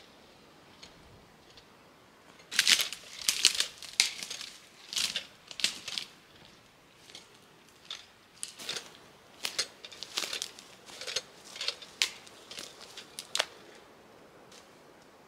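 Footsteps crunching through dry grass, twigs and pine needles, with the crackle of dry brush. The crunching comes in irregular bursts from about two and a half seconds in until near the end.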